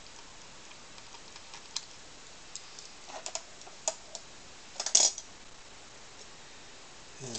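Small scattered clicks and taps of a screwdriver and screws working on a laptop's plastic case, with a louder quick cluster of clicks about five seconds in.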